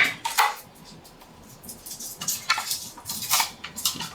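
Utility knife and electrical cable being worked: a handful of short scrapes and clicks as the cable's outer sheathing is cut off.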